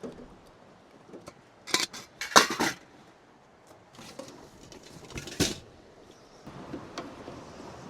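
Objects being handled, giving a few short clattering knocks about two seconds in and again about five seconds in.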